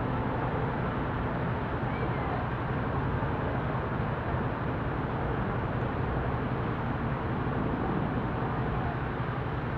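Steady city street traffic noise, an even rumble with no single sound standing out.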